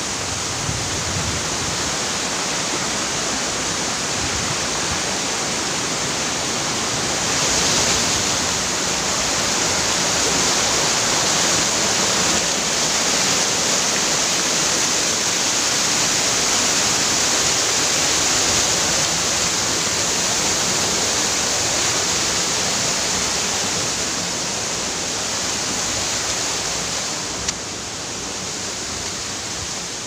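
Waterfall: a steady rush of falling water, growing a little louder about a quarter of the way in and easing off near the end, with one short click.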